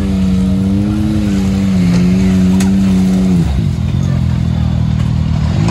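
Side-by-side UTV engine revving hard while stuck in a mud hole, trying to power out. The revs hold high, drop off about three and a half seconds in, then climb again near the end.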